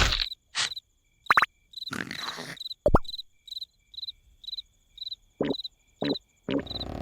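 Cartoon night ambience: a cricket chirping evenly about twice a second. Short comic sound effects cut in now and then, among them quick whistling pitch glides about a second and a half and three seconds in.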